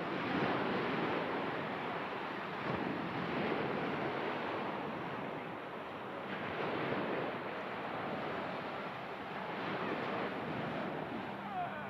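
Ocean surf washing onto the beach, swelling and fading every few seconds.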